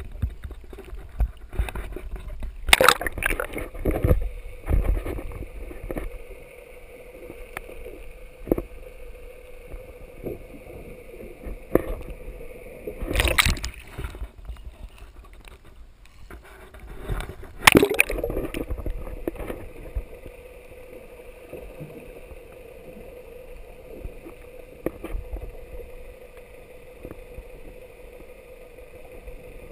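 Sea water sloshing and splashing against a camera mounted low on a boat's hull, gurgling as the camera dips under the surface, with loud splashes about three, thirteen and eighteen seconds in. A steady low hum runs underneath.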